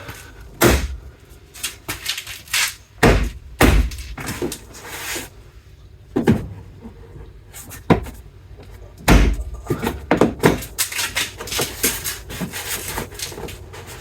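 Plastic tailgate trim panel being pushed and knocked into place by hand: a string of sharp knocks and snaps as its clips seat, with smaller plastic clicks and rattles in between.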